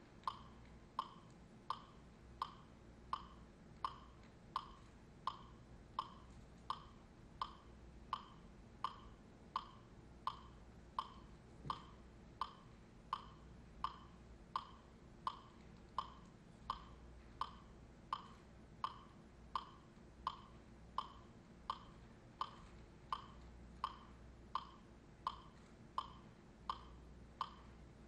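A steady percussive beat keeping time for the dancers: short, sharp, slightly ringing knocks, evenly spaced at about three every two seconds, faint over a low room hum.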